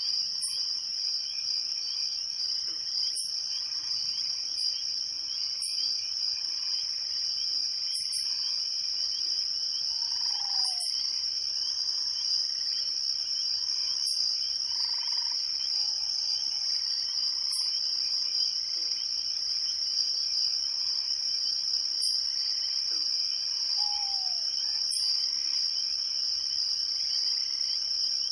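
A dense chorus of crickets trills steadily and without a break, with higher insect chirps every couple of seconds. Three short lower calls slide down in pitch: about ten seconds in, near twenty-four seconds, and at the very end.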